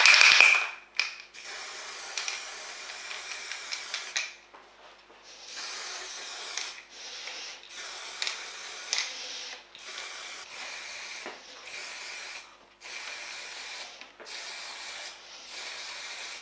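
Aerosol food-colour spray can hissing in a series of short bursts, about nine in all, each one to three seconds long with brief pauses between, as red colour is sprayed onto a frozen mousse cake.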